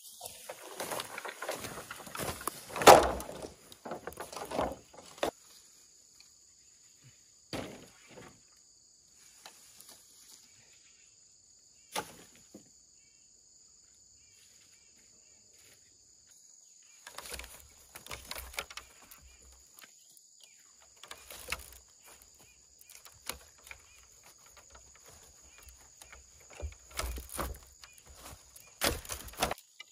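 Cut green bamboo poles handled on dry leaf litter: rustling and knocks as the poles are dragged and laid together, with one loud knock about three seconds in. A quiet spell in the middle, then more rustling and thumps near the end as the bundle is handled.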